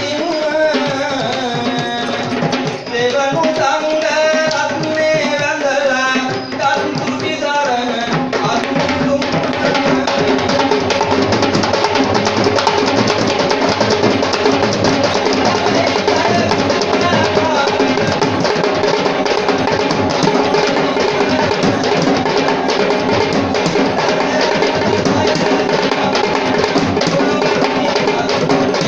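Ensemble of traditional Sri Lankan drums played together, with a wavering melodic line, sung or blown, over the drumming for the first several seconds. About eight seconds in, the drumming becomes dense and continuous.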